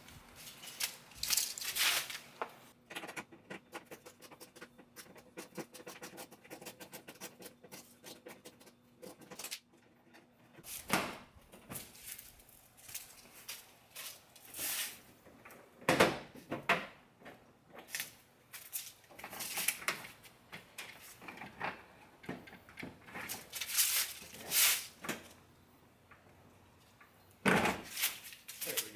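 Irregular clicks, knocks and clatter of hands and tools working on a car's plastic front bumper and trim, with a run of rapid clicking a few seconds in.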